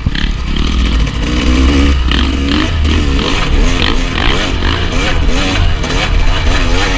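Dirt bike engine heard from an on-board camera, revving up and down over and over as the rider works the throttle, with heavy wind rumble on the microphone.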